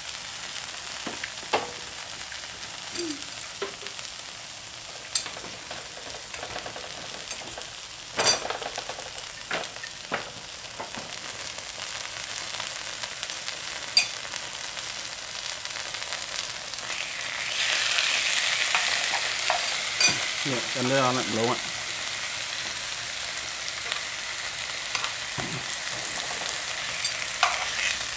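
Beef slices, potato and long green beans sizzling on a nonstick grill pan over a portable gas stove: a steady frying hiss with scattered sharp clicks and pops, swelling louder for a few seconds a little past the middle.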